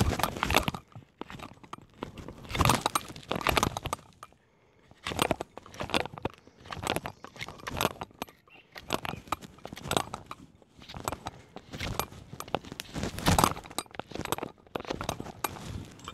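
Knife whittling a wooden stick: repeated short scraping strokes at an uneven pace, with a brief pause about four seconds in.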